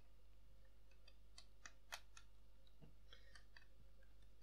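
Faint, scattered clicks of Lego plastic pieces being pressed and seated into place, the loudest about two seconds in, over quiet room tone.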